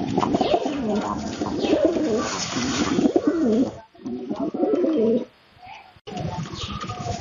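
Domestic pigeons cooing over and over in low, wavering tones, with two short breaks.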